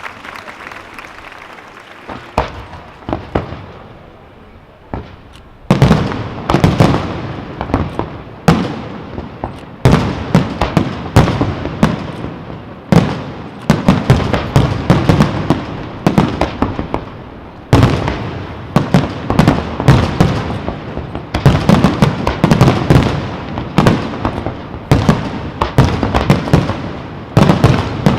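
Aerial fireworks display: a few scattered bangs, then from about six seconds in a dense, continuous barrage of shell bursts and crackling reports.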